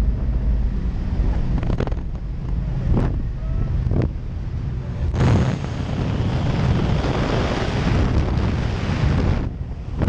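Single-engine light aircraft's engine droning steadily inside the cabin, with a couple of short knocks; about five seconds in a loud rush of wind sweeps in as the jump door opens in flight.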